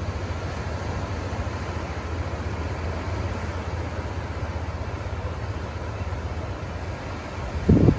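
Ocean surf washing steadily onto the beach, a continuous noise with a deep rumble beneath it. Near the end, a gust of wind briefly buffets the phone's microphone with a loud low thump.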